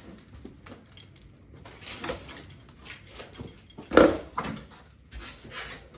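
Bicycles being handled and shifted about, with scattered rattles and scrapes and one loud clunk about four seconds in.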